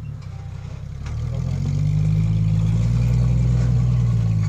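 Off-road vehicle's engine running at low revs on a trail, getting louder about a second in and then holding a steady drone.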